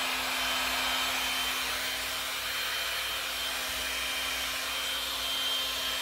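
Handheld heat gun running steadily, its fan blowing with a thin high whine and a low hum, used to spread freshly poured resin.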